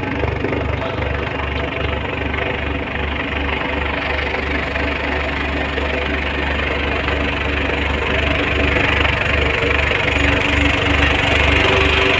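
Engine of heavy road-construction machinery running steadily, with a low throb pulsing a few times a second; it grows slightly louder near the end.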